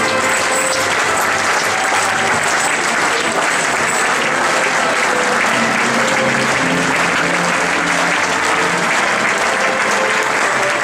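Large audience applauding steadily, with an orchestra playing underneath.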